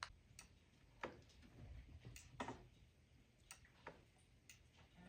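Faint, irregular clicks, about eight in five seconds, of a computer mouse and keyboard being worked at the desktop.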